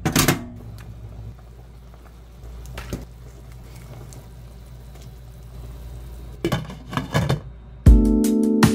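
Steel pot of pork broth boiling with a low steady rumble, a sharp clatter just after the start and several metal clicks and knocks of a fork against the pot about two-thirds of the way in. Background music comes in near the end.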